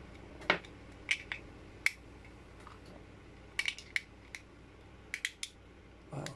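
AAA batteries being pressed into the plastic battery holder of an LED puck light: a dozen or so sharp, irregular clicks and small plastic clatters as the cells snap into their contacts.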